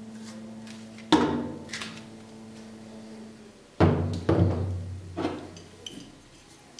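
BC Racing ER-type coilover struts knocked and set down on a table: four heavy metallic thuds, one about a second in and three between about four and five seconds in, each ringing on as it fades.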